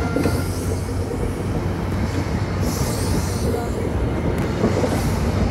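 InterCity 125 High Speed Train, Class 43 power car 43191, pulling out of the station: its coaches roll past close by, with steady wheel-on-rail rumble over a low diesel hum and a rise of hiss about halfway through.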